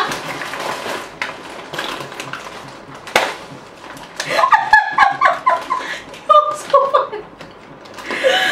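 Two women laughing hard. The laughter is breathy and mostly unpitched at first, then comes in pitched bursts about four and six seconds in.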